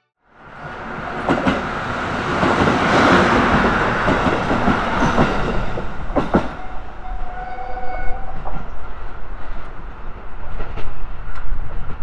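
A KiHa E130 diesel railcar passing close by over a level crossing, its rumble swelling to a peak a few seconds in and staying loud. The wheels clack over the rail joints in pairs, once about a second in and again about six seconds in.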